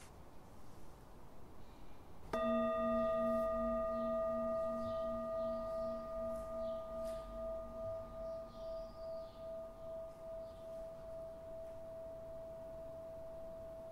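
A singing bowl struck once about two seconds in. Its tone rings on with a slow pulsing wobble and fades gradually.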